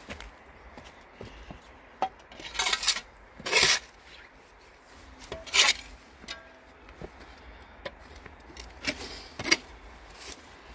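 A flat hand scraper scraping soil and grit along the edge of a stone grave slab: several short, rasping scrapes in bursts a second or two apart, the loudest about halfway through.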